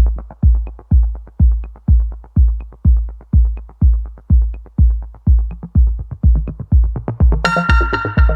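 Electronic background music: a steady kick-drum beat at about two beats a second, joined by bright synth chords about seven and a half seconds in.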